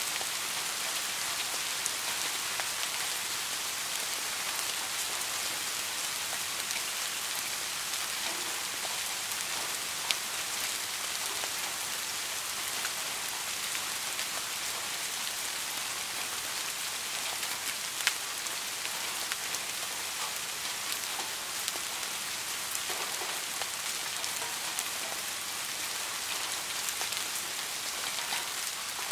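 Soft rain falling steadily: an even hiss with many small drop ticks scattered through it, and two sharper drop taps, one about a third of the way through and another a little past the middle.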